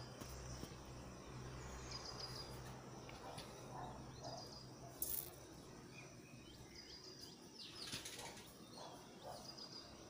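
Faint outdoor ambience with a short, high, trilled chirp that repeats about every two seconds. A single sharp click comes about halfway through.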